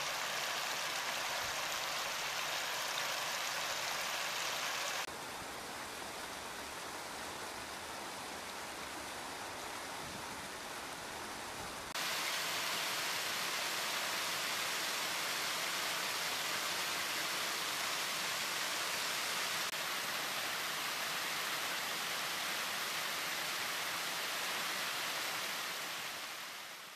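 A mountain stream rushing and splashing over rock slabs in small cascades, a steady hiss of moving water. It drops to a quieter level about five seconds in, comes back louder about twelve seconds in, and fades out at the end.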